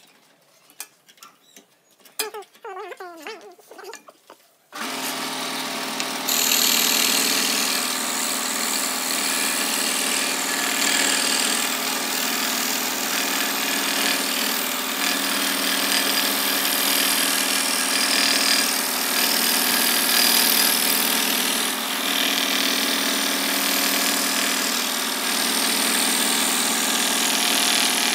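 Electric scroll saw switching on abruptly about five seconds in and running steadily, its reciprocating blade cutting through a wooden board. The sound gets louder a second or so later. Before it starts, a few light clicks come from handling the blade and board.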